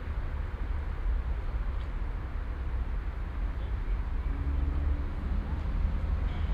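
City park ambience: a steady low rumble of city traffic under a general outdoor hiss, with a faint hum coming in for about a second around four seconds in.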